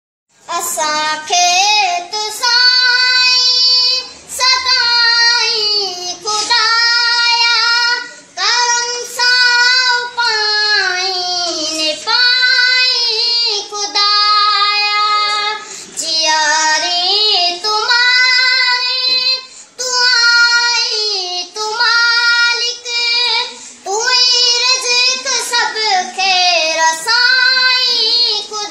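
A boy singing a Sindhi devotional prayer poem (dua) solo and unaccompanied, in long held phrases with brief breaks between them.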